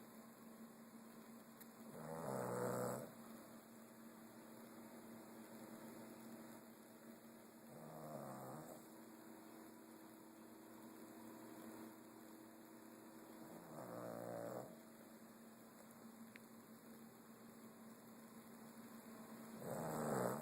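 A sleeping pet snoring: four snores about six seconds apart, each about a second long, the first and last the loudest.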